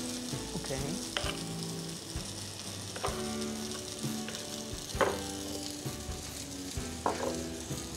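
A spoon stirring and scraping a thick mixture of feta, cream cheese, honey and herbs in a bowl, with a knock of the spoon against the bowl about every two seconds.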